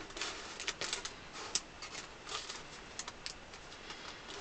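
Scattered light clicks and taps of workshop clamps and tools being handled on a workbench, a few sharper than the rest.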